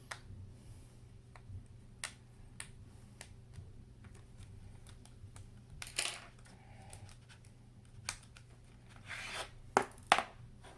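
Small tool clicks and short scrapes on an iPad Air 2 as the battery screw is removed, with two sharp clicks close together near the end.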